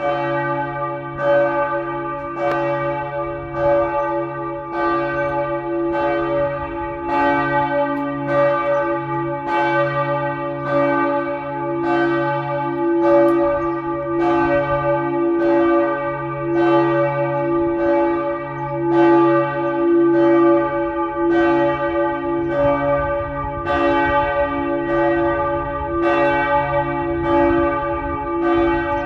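Several church bells in the tower ringing together in a full peal, with fresh strikes about once a second and their long, overlapping hum.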